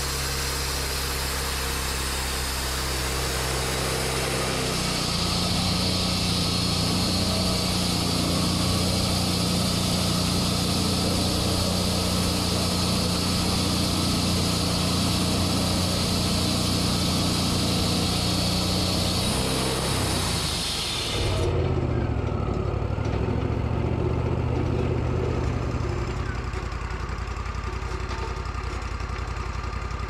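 Wood-Mizer LT40 band sawmill sawing a board from a cherry log: the engine runs steadily under load while the band blade hisses through the wood. The hiss stops suddenly about two-thirds of the way through as the cut ends, and the engine's pitch glides, then settles into a lower steady run.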